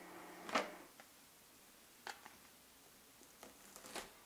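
Faint handling sounds of soft scone dough on a wooden board: a soft pat about half a second in, another around two seconds in, and a few light ticks near the end as a plastic dough scraper cuts down through the dough edge.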